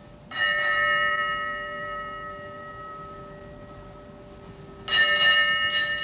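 Ship's bell (rynda) being struck to ring the ship's half-hour time signal, 'striking the glasses'. It is struck once, rings out and fades slowly, then is struck again near the end.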